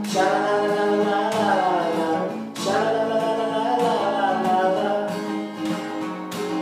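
A man singing a melody over his own strummed steel-string acoustic guitar.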